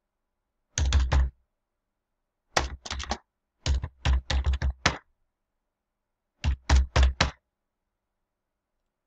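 Computer keyboard keys being typed in four short bursts of a few strokes each, every keystroke carrying a dull thump.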